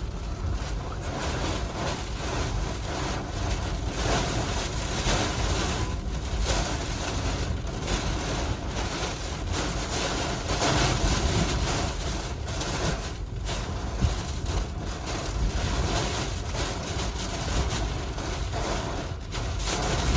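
Hurricane eyewall wind blowing hard, a continuous rush that swells and eases every few seconds, with a heavy low rumble of wind buffeting the microphone.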